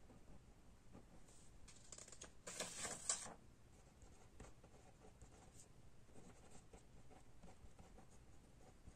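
Faint scratching of a pen writing on paper, in short strokes, with one louder brief scrape lasting under a second about two and a half seconds in.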